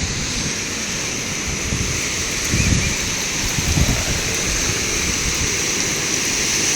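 Ocean surf washing in a steady hiss, with wind buffeting the microphone in a few low gusts.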